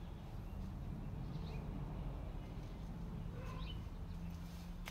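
A few faint, short bird chirps over a steady low hum.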